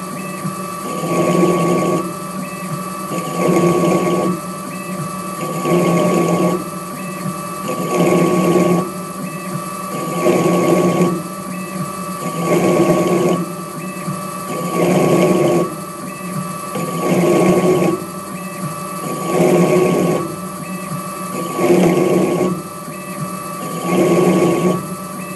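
Benchtop CNC lathe (Intelitek Prolight Turning Center) cutting a thread on a steel pull stud with a single-point threading tool. It makes a short burst of cutting noise on each pass, about every two and a quarter seconds, over a steady drive whine and hum.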